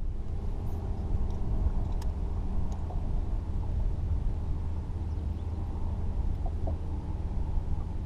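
A bass boat's motor running with a steady low rumble and a faint hum.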